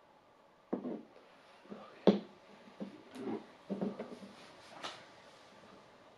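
Small glass bottle handled and set down on a tabletop: a string of light knocks and clicks, the sharpest about two seconds in.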